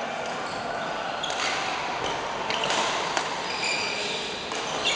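Badminton rally on an indoor court: a few sharp smacks of rackets hitting the shuttlecock and short high squeaks of shoes on the court floor, over the steady noise of a busy hall.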